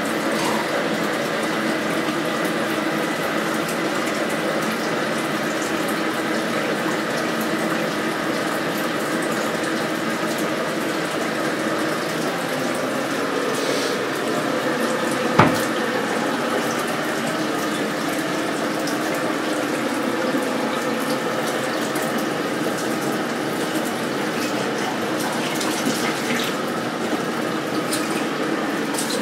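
Kitchen mixer tap running steadily into the sink, the water splashing over a feeding bottle being washed under it. A single sharp knock about halfway through.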